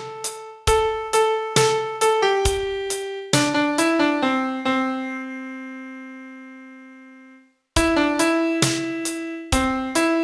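Piano playing a song melody note by note; a phrase ends on a long held note that slowly dies away into a moment of silence, and the melody starts again near the end.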